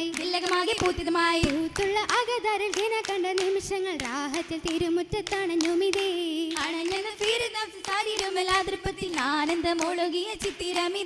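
Female voices singing an Oppana song (Mappila song) with a wavering, ornamented melody, over frequent sharp hand claps from the dancers.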